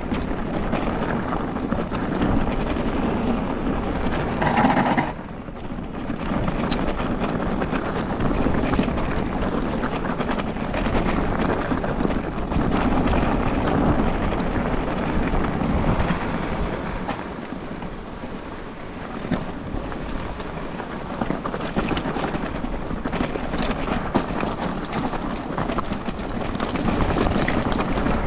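Continuous rushing noise of riding an electric mountain bike over a rough, icy track: wind on the microphone mixed with the rumble of tyres on the ground. It swells and eases, with a brief sharp drop about five seconds in.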